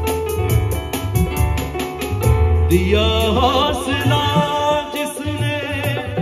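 Live qawwali-style music: an electronic keyboard and hand drums (tabla and dholak) keeping a steady, quick beat over a deep bass line. About three seconds in, a male voice comes in singing a long, wavering, ornamented line.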